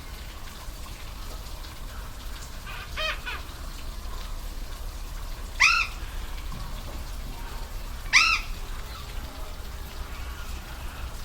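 Waterfall rushing steadily, with three short animal calls, each an arched note that rises then falls: a faint one about three seconds in, then two loud ones about five and a half and eight seconds in.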